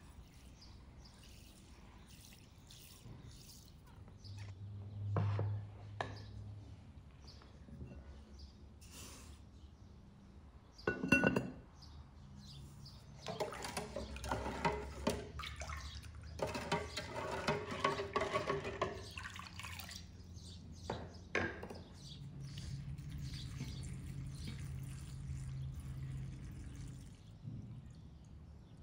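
Wooden spoon stirring salt into water in an enamel pot, scraping and knocking against the pot for several seconds after a single sharp clink. Near the end, salt water poured from the pot into a glass jar in a steady stream.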